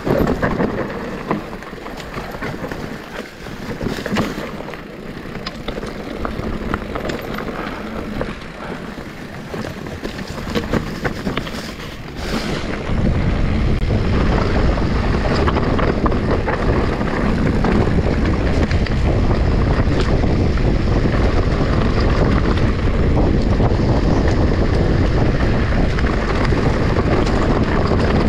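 Electric mountain bike riding down a dirt trail: tyre noise with many sharp clicks and rattles from the bike. A little before halfway, heavy wind rumble on the microphone suddenly takes over and stays loud.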